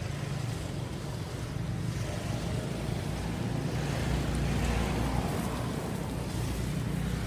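Steady low rumble under a haze of outdoor noise, swelling slightly around the middle.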